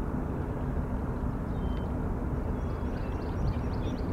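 Steady low rumble of the container ship JSP Rover's engines as it passes, with a constant hum underneath.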